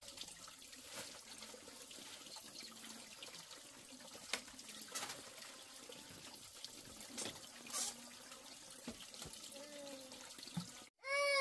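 Water running steadily, like a tap or a trickle into a basin, with a few light knocks about four, five and seven seconds in. A child's voice cries out briefly at the very end.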